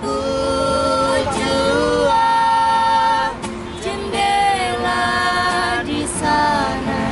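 A woman and a man singing together to a strummed acoustic guitar, in long held notes: two phrases with a short break about three and a half seconds in.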